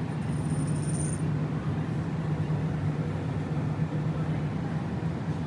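Steady low hum of supermarket freezer cases running, with a faint wash of store noise.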